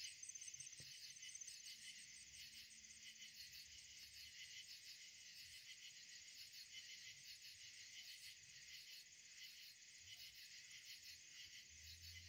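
Faint chorus of night insects, a high-pitched, rapidly pulsing trill with a thin steady high whine above it.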